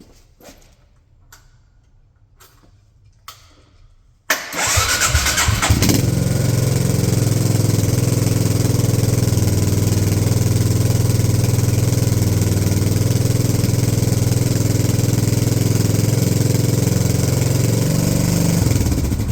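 Faint clicks, then a freshly tuned-up Suzuki Savage 650's single-cylinder engine is cranked by the electric starter with a rising whine. It catches after about a second and a half and idles steadily, dying away right at the end.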